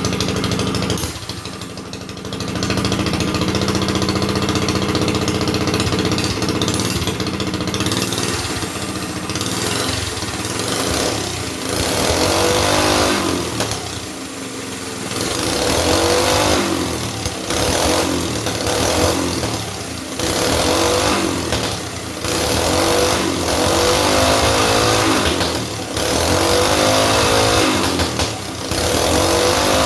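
Small engine of a 2025 Hoverhearts, fitted with a JMCHstore header exhaust pipe, running at a steady speed, then revved over and over from about halfway through, its pitch rising and falling about once every two seconds.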